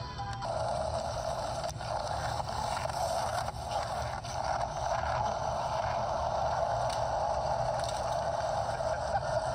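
Skateboard wheels rolling steadily over rough pavement, a continuous rolling rumble, with a few light clicks and knocks from the board.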